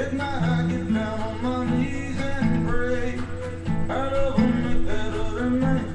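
Acoustic guitar being strummed in a steady rhythm, with a melodic singing voice over it.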